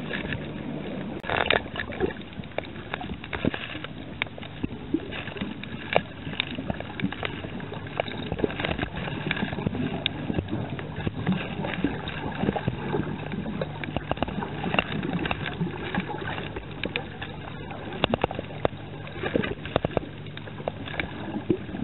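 Low steady hum of a boat engine heard with the reef footage, under a continual scatter of irregular sharp clicks and crackles.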